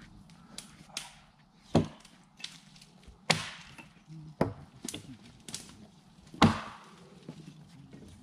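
Axe chopping into a felled log: four heavy strikes, one to two seconds apart, with fainter knocks between them.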